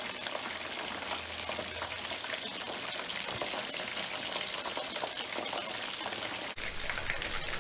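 Besan-battered keema tikkis deep-frying in hot oil on medium heat: steady sizzling with fine crackles, dipping briefly about six and a half seconds in.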